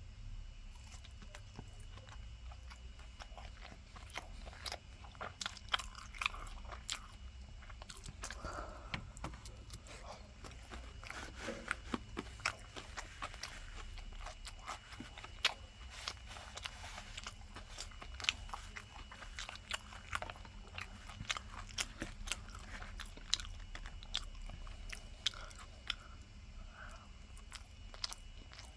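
Close-up chewing and biting of crispy breaded pork cutlet (tonkatsu), with many irregular sharp crunches throughout.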